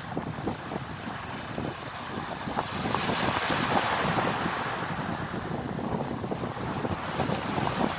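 Wind buffeting the microphone, with low gusty rumbles, over the wash of small waves breaking and running up the beach; the hiss of the surf grows louder for a couple of seconds around the middle.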